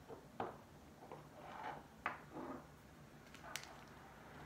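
Small objects being handled and set down on a tabletop: a few light taps, about four spread over the few seconds, mixed with brief soft rustling.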